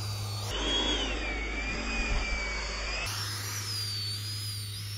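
Electric RC airplane motor whining as the plane flies, its high pitch wavering up and down. The background hum changes abruptly twice, about half a second in and again about three seconds in.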